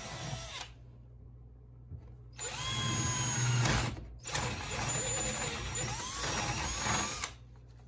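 Cordless drill with a hole saw cutting through fiberglass. It runs briefly at the start, then after a pause of under two seconds spins up, its pitch rising, and cuts for about five seconds with a brief let-up around the middle before stopping.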